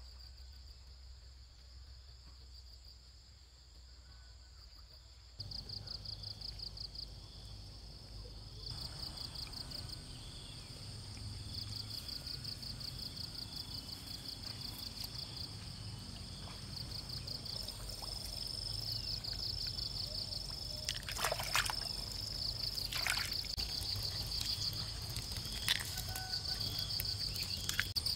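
Insects trilling in a rapid, high-pitched pulsing chorus over low outdoor rumble, with a few sharp splashes of shallow paddy water from about two-thirds of the way through.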